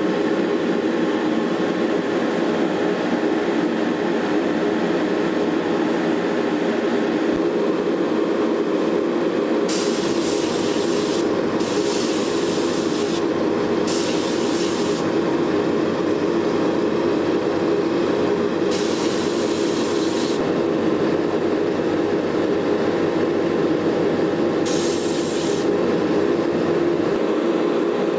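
A spray booth's extractor fan running with a steady hum, and an airbrush spraying in five short hisses, the first about ten seconds in, as paint goes through a circle stencil onto model tank wheels.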